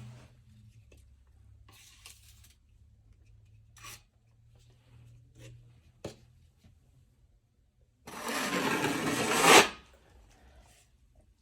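Faint rubs and knocks of a drywall knife working joint compound on the wall, then one long scraping stroke about eight seconds in that grows louder and stops abruptly; it is the loudest sound here.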